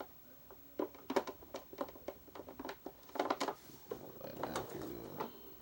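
Irregular plastic clicks and taps as a motor filter and its screen are pressed into place in a Hoover upright vacuum cleaner.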